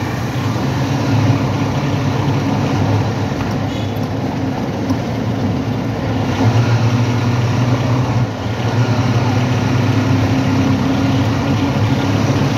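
Steady low engine hum over busy street noise.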